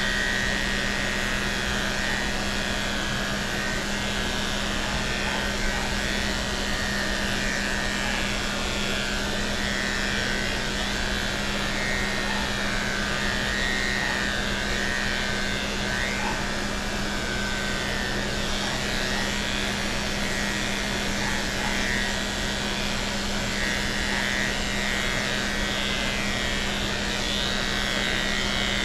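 Electric dog clippers with a #7 blade running continuously through a Shih Tzu's coat, a vacuum hose fitted to the clipper drawing off the cut hair. A steady motor hum over an even rushing hiss.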